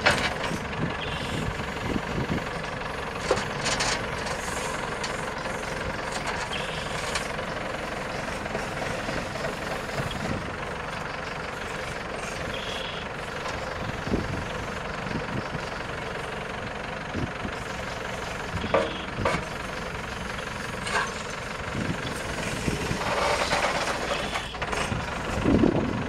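The New Holland LB110 backhoe's four-cylinder turbo diesel runs steadily under hydraulic load as the backhoe arm swings and digs, with a few sharp knocks from the bucket and boom. The noise gets louder near the end as the bucket digs into the soil.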